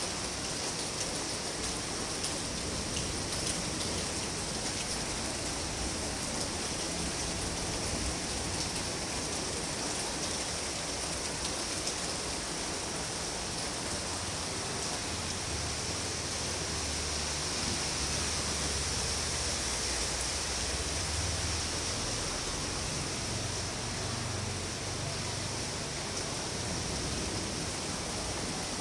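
Steady rain falling on rooftops and wet pavement, an even hiss with no letup. A faint low rumble comes in from about halfway and fades again.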